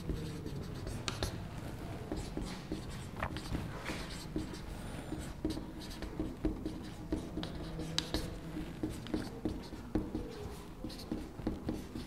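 Marker pen writing on a whiteboard: short, irregular scratching strokes as words are written out letter by letter.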